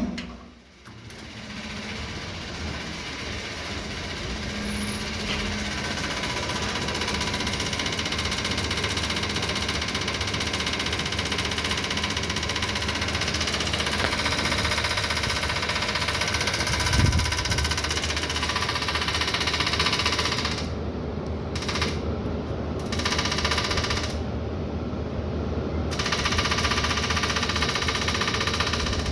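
Voltas window air conditioner running with a loud, rapid rattling clatter: the fan blade is striking the outer body, which has rusted and swollen. The noise grows louder over the first few seconds, then goes on steadily.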